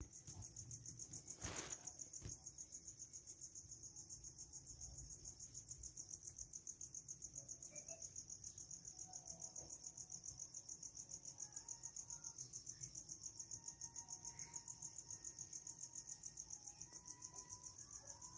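Crickets chirring faintly in a steady, fast-pulsing high trill, with a single short knock about a second and a half in.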